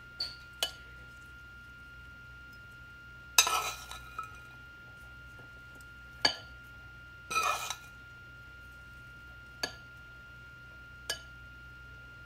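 Metal spoon clinking against a ceramic bowl and dish as roasted chickpeas are spooned out and dropped on: single sharp clinks, with two short clattering bursts about three and a half and seven and a half seconds in.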